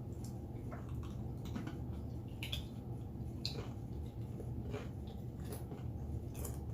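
A person chewing food close to the microphone, with scattered wet mouth clicks and smacks, over a steady low hum.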